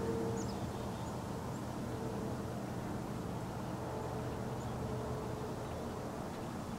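Steady low outdoor background rumble, with a few faint short high chirps about half a second in.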